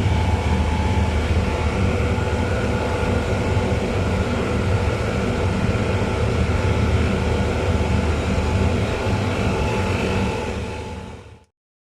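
Steady drone of running chiller plant machinery, a deep hum with several steady whining tones above it. It fades and cuts to silence about eleven seconds in.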